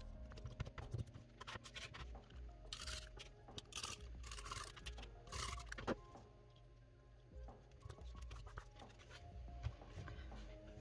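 Stiff paper card sliding and rustling on a cutting mat as it is moved and folded, in a few short scraping bursts, over quiet background music.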